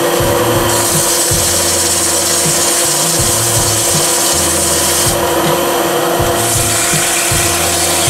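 Sandpaper held against an ash workpiece spinning on a wood lathe: a continuous hissing rub over the lathe motor's steady hum. The hiss thins briefly about five seconds in.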